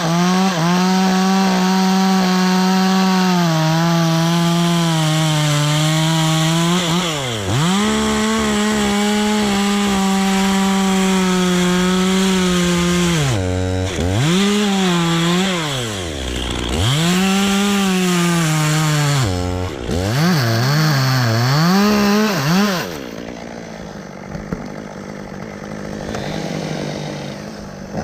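Chainsaw running at full throttle while cutting wood, its steady high engine note dropping and rising again several times as the throttle is let off and squeezed, then dropping away near the end.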